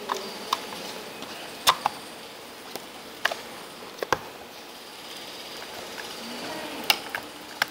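Irregular sharp clicks and taps of a hard plastic SHR/IPL handpiece housing being handled and its two halves pressed together, about eight separate knocks with the loudest near two seconds in and near the end.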